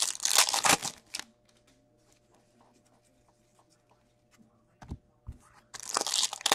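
Foil hockey-card packs being torn open and crinkled by hand. One loud tearing rustle comes in the first second, then a quiet stretch with small clicks and a couple of soft thumps around five seconds in, and a second pack rips and crinkles near the end.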